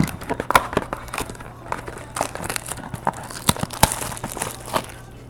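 Trading card packaging crinkling and crackling by hand as a card box and its packs are opened. The sound is a run of irregular sharp crackles and snaps.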